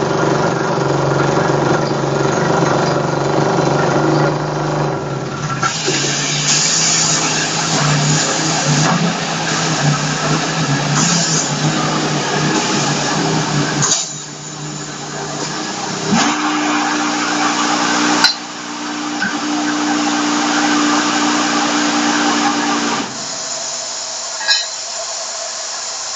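NKR-100MPA underground drill rig running on compressed air: a steady mechanical drone under a loud hiss of air. The level drops about halfway through, a steady hum holds for several seconds after that, and near the end it settles to a softer, even air hiss.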